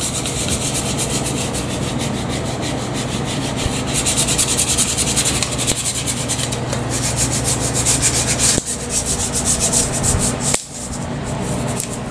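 A hand rubbing a strip of 3M Safety-Walk anti-slip tape down onto shower floor tile to press it flat: a steady, rapid, scratchy rubbing that breaks off briefly near the end.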